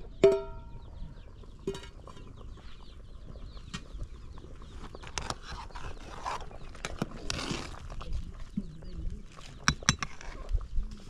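Short pitched animal calls: a loud one just after the start and a shorter one about a second and a half later. Scattered sharp knocks and a rustling scrape follow around the middle.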